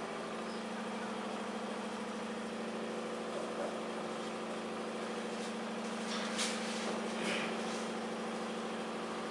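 A steady machine hum at one low pitch, with a few short squeaks of a marker writing on a whiteboard about six to seven and a half seconds in.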